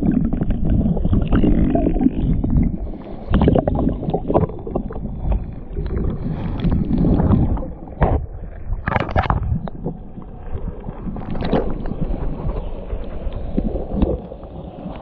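Muffled underwater sound of a shallow creek as picked up by a submerged action camera: a dense low rumble of moving water with irregular knocks and clicks.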